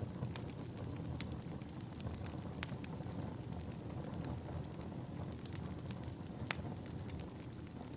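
Wood fire in a fireplace crackling, with a steady low rumble and irregular sharp pops and snaps, a few louder ones standing out.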